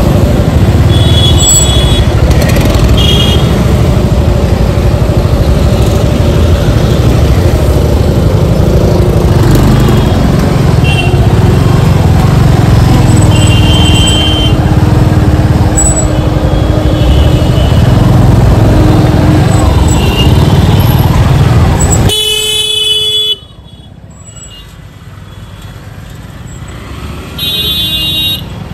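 Busy road traffic with vehicle horns honking several times over a loud continuous rumble. The rumble cuts off abruptly about three quarters of the way through, leaving quieter sound, and a horn sounds again near the end.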